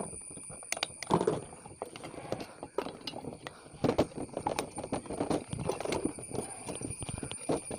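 Irregular knocks and metallic clatter of hand work on an old two-stroke chainsaw's engine block as it is worked loose from the crankcase.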